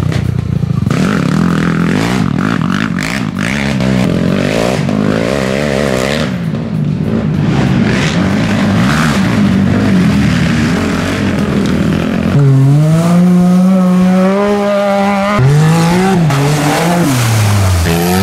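Off-road racing ATV and UTV engines revving under hard throttle on a dirt course. About twelve seconds in, one engine holds a high, steady note for a few seconds, then its revs rise and fall.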